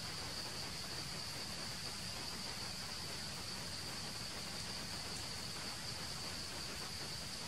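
Steady, high-pitched drone of insects over an even background hiss.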